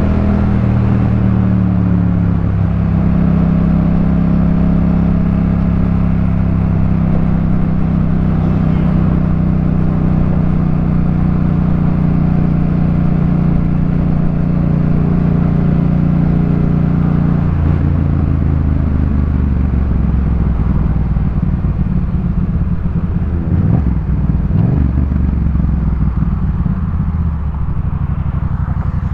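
Yamaha MT-07's parallel-twin engine breathing through a Jeskap K4 full exhaust system, running at a steady pitch while being ridden. About two-thirds of the way through, the engine note drops lower, then rises and falls briefly.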